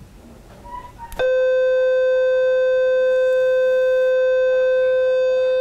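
Ellman radiosurgery unit sounding its steady activation tone, a loud single-pitched beep that starts abruptly about a second in and holds: the signal that cutting current is flowing to the electrode tip as it cuts and cauterizes skin.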